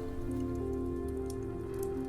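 Soft ambient music of slow, held notes, with the faint scattered crackles of a wood fire in a fireplace.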